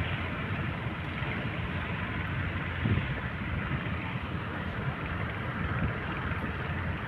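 Small boat's engine running steadily under an even, noisy rush, with a brief bump about three seconds in.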